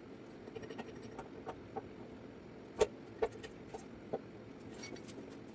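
A few short, light clicks and knocks as a bottle jack and a block of wood are set in place against a bare motorcycle-ATV frame, the sharpest about three seconds in, over a steady low background hum.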